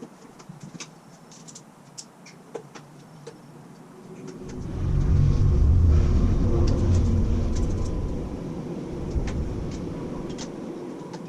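A passing road vehicle: a low rumble that swells about four and a half seconds in, then slowly fades away. A few light clicks and taps come before it.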